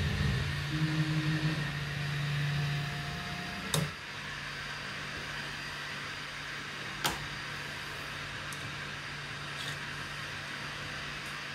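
3D printer's stepper motors whining as the print head travels, stopping with a sharp click just before four seconds in. After that a steady fan hum, with one more sharp click about seven seconds in.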